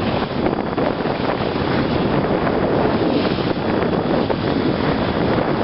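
Wind buffeting the microphone aboard a MacGregor 26X sailboat sailing into the wind, with waves washing against the hull. The noise is loud and steady throughout.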